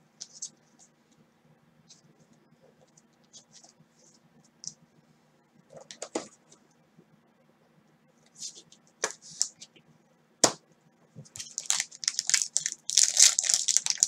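Foil trading-card pack wrapper crinkling in the hands, with scattered light ticks and crackles. Near the end comes a dense run of crinkling and tearing as the foil pack is ripped open.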